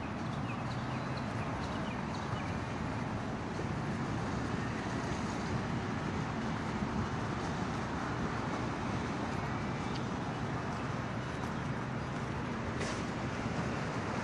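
Steady outdoor background noise: a continuous low rumble and hum with no distinct events.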